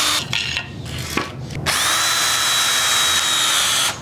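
Cordless drill driving a screw into wooden boards: a few short bursts on the trigger, then one steady run of about two seconds that stops sharply near the end.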